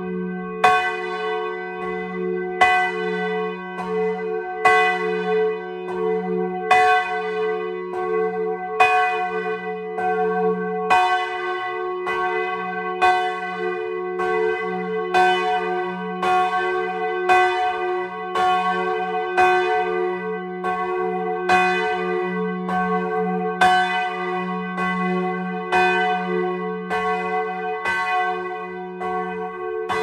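Church bells ringing up close in the belfry. The clappers strike in an even, rapid succession, and each stroke rings on over a steady low hum from the bells.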